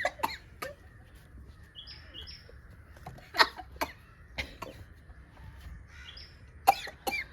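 A few short coughs and sniffs from people who have just snorted snuff, the powder catching in their noses and throats. A bird chirps a few times in between.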